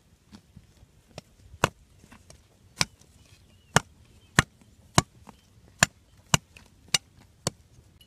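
Machete blade chopping a thin wooden stick held on the ground, about nine sharp strikes at an uneven pace, roughly one or two a second.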